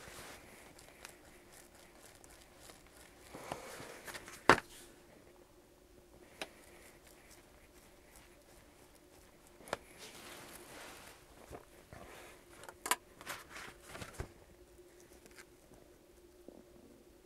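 Handwork on cardboard at a wooden plank table: a small hand tool scraping and pressing into the cardboard, with scattered sharp knocks and clicks, the loudest about four and a half seconds in and a quick cluster near the end, plus light rustling of the cardboard. A faint steady hum runs underneath.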